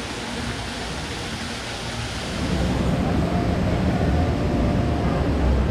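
Steady rush of a small waterfall pouring into a pool. About two and a half seconds in it gives way to a louder, low rumble.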